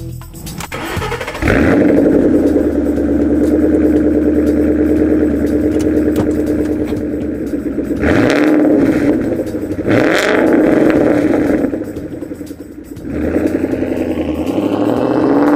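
2013 Ford Mustang GT's 5.0 V8 through Corsa Sport mufflers with the resonator deleted, starting up abruptly about a second and a half in, then idling steadily. It is blipped twice around the middle, and near the end the revs rise in a smooth climb.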